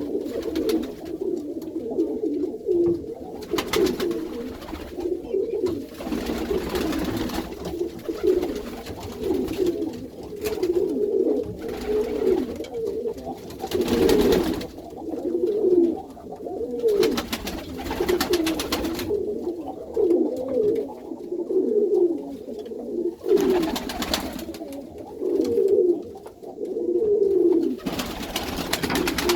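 A flock of Iranian domestic pigeons cooing together inside their loft, many calls overlapping without a break. Short rustling noises come now and then over the cooing.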